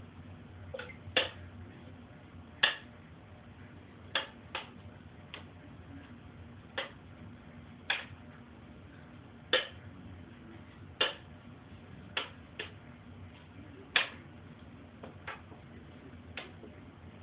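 Sharp clicks at uneven intervals, about one every second or second and a half, some coming in quick pairs, over a faint steady low hum.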